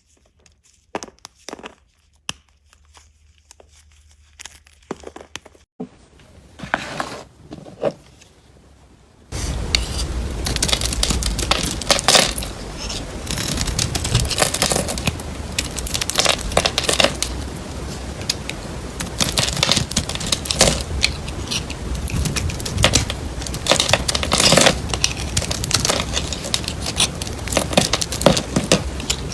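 Knife cutting through dry bar soap. At first there are sparse, quiet crisp cuts, then about a third of the way in it turns suddenly louder into a dense, continuous crunching and crackling.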